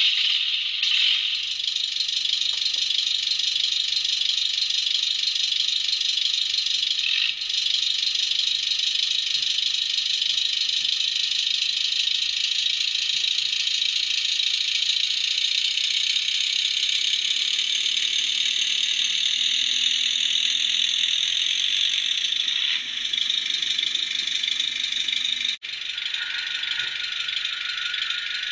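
Sound decoder in an HOm model of the RhB Tm 2/2 diesel tractor playing its diesel engine sound through a tiny speaker: a steady, thin, rattling engine sound with no bass while the model drives off.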